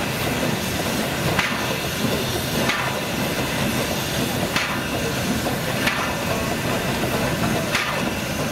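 A machine running steadily with a hissing, noisy undertone and a sharp knock about every one and a half seconds, the beats not quite evenly spaced.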